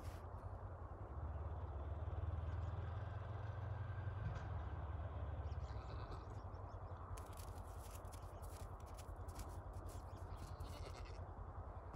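Farm animals calling over a steady low rumble, then a run of sharp crackling clicks for a few seconds in the second half.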